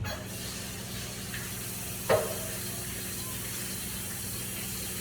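Kitchen faucet running steadily into the sink as something is rinsed out, with a single sharp knock about two seconds in.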